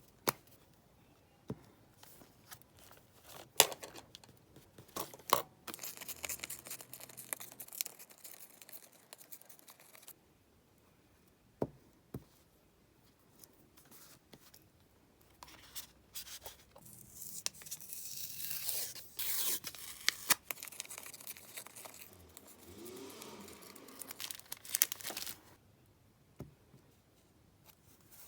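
Paper being torn and rustled in short stretches, with scattered sharp taps and clicks from stationery being handled.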